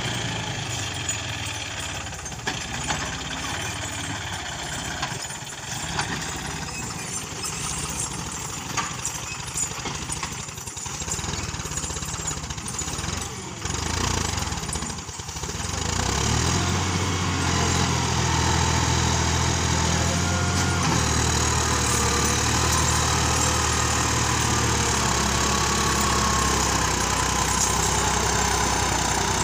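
John Deere tractor's diesel engine labouring under a heavy load as it drags a trolley stacked with sugarcane out of a field, the load heavy enough to lift the tractor's front wheels. The engine note grows louder and steadier about halfway through.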